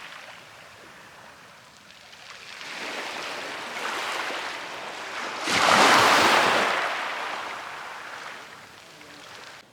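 Sea waves washing onto the shore, swelling and ebbing, with the biggest wave breaking about five and a half seconds in and then slowly drawing back.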